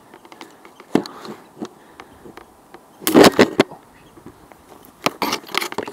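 Rustling and small knocks of a handheld camera and clothing brushing against mossy tree branches, with a loud burst of scraping rustle about three seconds in and more rustling near the end.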